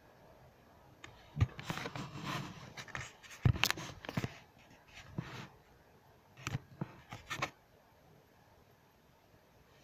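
Irregular scraping and tapping with a few sharp knocks, starting about a second in and stopping a couple of seconds before the end.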